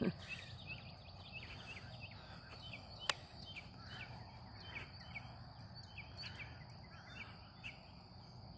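Faint outdoor ambience: many short falling bird chirps over a steady high-pitched insect drone, with a single sharp click about three seconds in.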